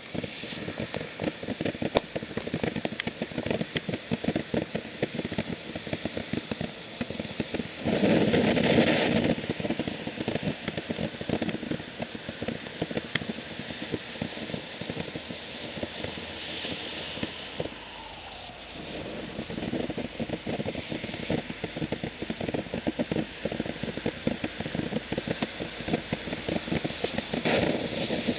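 Fish Out of Water consumer fountain firework burning: a steady hiss with dense, rapid crackling, swelling louder about eight seconds in and again near the end.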